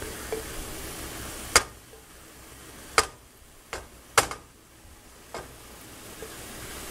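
Kitchen utensil clinking against a nonstick frying pan while tossing stir-fried noodles with beef and broccoli: about five sharp clicks, irregularly spaced. Faint sizzling in the pan dies down after the first click.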